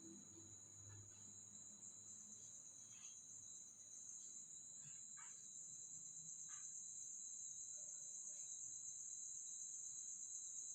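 A faint, steady, high-pitched insect chorus that grows slightly louder, with a few soft ticks scattered through it.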